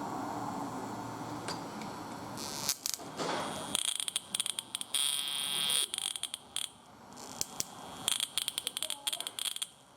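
Ignition spark snapping in quick, irregular clicks with a high-pitched buzz, starting a few seconds in. It is high voltage arcing inside a Chevy 350 distributor cap from the number 2 terminal across a burned track to the next terminal, the cause of the engine's misfire.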